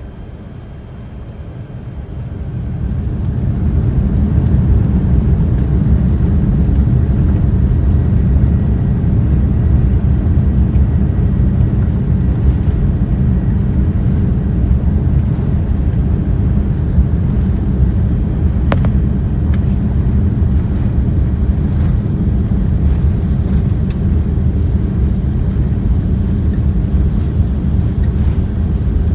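Airbus A380-800's engines heard from inside the cabin: a low rumble that swells over about two seconds as thrust comes up, then holds steady and loud.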